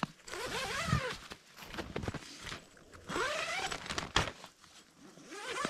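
Zipper on a hot tent's door being pulled open in long strokes: two full pulls and a third starting near the end, each a buzz that rises in pitch, with a few light clicks between them.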